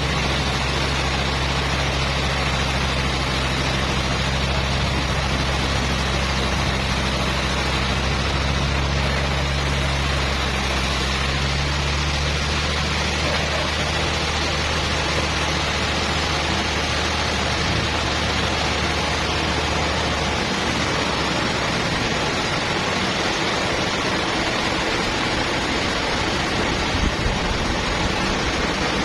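Sawmill machinery running: a steady rushing noise over a low engine hum. The hum drops lower about a third of the way through and stops about two-thirds through, while the rushing noise carries on.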